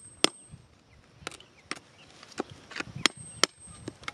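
A hand tool digging into wet gravel and stones, making several sharp, irregular clicks and knocks as it strikes and pries at the rock.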